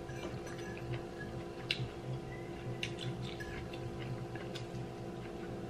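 Scattered light clicks of a metal fork against a plate and king crab shell during eating, over a steady background hum.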